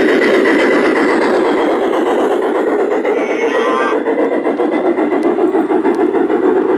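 Large-scale garden-railway freight cars rolling past on track: a steady, loud clatter and rumble of wheels on rail. A brief warbling squeal sounds about three seconds in.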